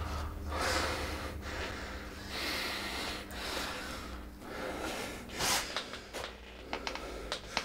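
A person breathing heavily, a run of ragged breaths in and out about once a second, over a low steady hum. A few small clicks near the end.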